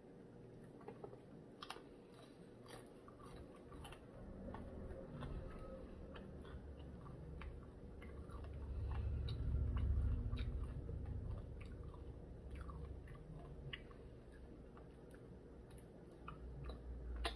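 A person chewing and biting crispy fried chicken, with many small crunches and mouth clicks; the chewing gets louder and heavier about halfway through.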